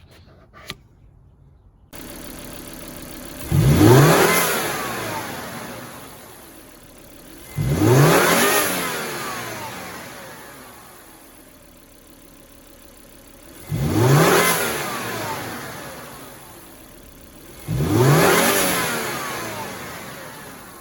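2005 Volvo S60 T5's turbocharged five-cylinder engine idling and revved four times. Each rev climbs quickly and falls slowly back to idle, with the aftermarket IPD Boost Ability intake plumbing and bypass valve fitted.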